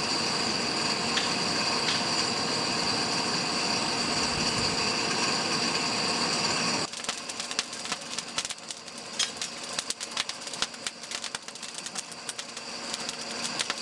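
A steady motor-like whir with a high whine, which stops abruptly about seven seconds in. It is followed by a run of irregular small clicks and crackles from the burning charcoal of a blacksmith's forge.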